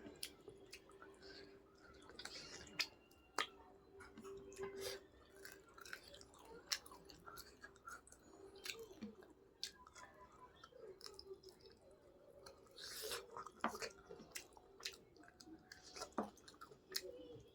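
A person chewing and eating with their mouth close to the microphone, with wet mouth sounds and many small irregular clicks and smacks.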